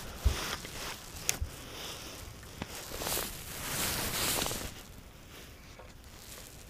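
Handling noise from fishing gear on a boat: a thump and a sharp click in the first second or so, then a couple of seconds of rustling and swishing.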